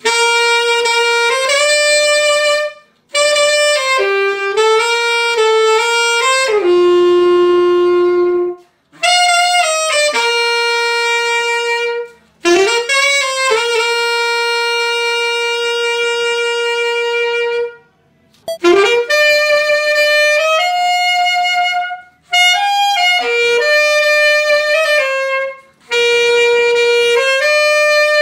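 Solo saxophone played on a Yanagisawa metal mouthpiece: a slow melody in phrases a few seconds long, broken by short breath pauses. There is a long low note about seven seconds in and another note held for about four seconds in the middle.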